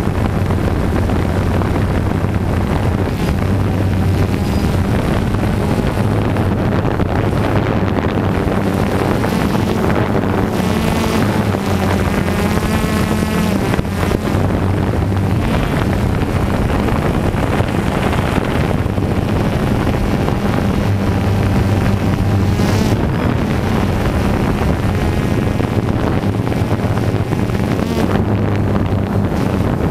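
DJI Phantom 2 quadcopter's four motors and propellers buzzing steadily in flight, the pitch shifting slightly as it manoeuvres, with wind rushing over the microphone.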